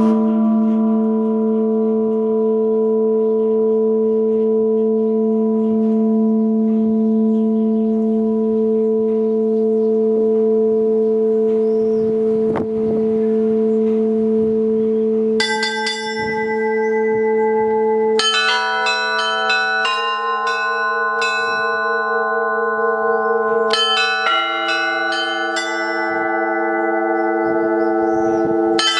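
Russian Orthodox church bell peal from a ten-bell belfry before the liturgy: a large bell struck at the start hums on steadily, then from about sixteen seconds in smaller, higher bells join in quick strikes, and a deep bell is struck again about twenty-four seconds in.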